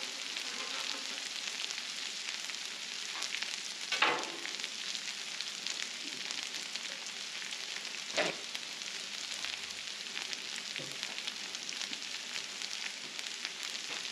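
Shredded potatoes and patties frying on a hot Blackstone flat-top steel griddle: a steady high sizzle, with two brief sharp knocks about four and eight seconds in.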